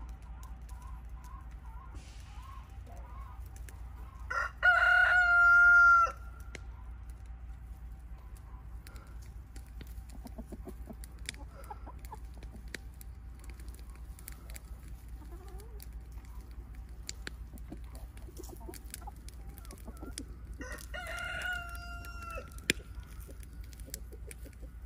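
A rooster crowing twice: a loud crow about four seconds in and a fainter one about sixteen seconds later. Hens cluck softly in between.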